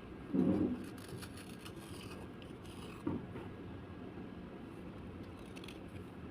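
Slate pieces being handled and scraped: a soft low thump about half a second in and a smaller one about three seconds in, with faint crackling between, over a steady background hiss.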